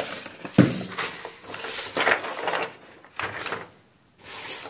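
Paper rustling with light knocks as sheets are handled on a clipboard, with a brief drop to near silence late on.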